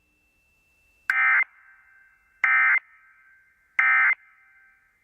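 Emergency Alert System end-of-message code: three short bursts of two-tone digital data screech, about a second apart, signalling that the alert broadcast has ended.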